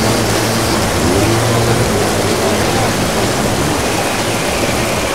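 Motor scooter engine running as the scooter pulls away through mud, its low hum fading about two seconds in, under a steady loud rushing noise.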